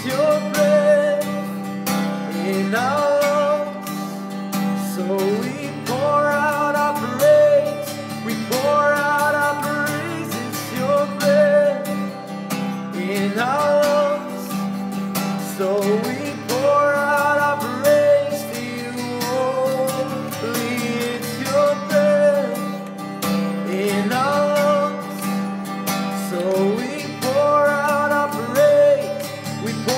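A man singing a worship song, accompanying himself by strumming an acoustic guitar.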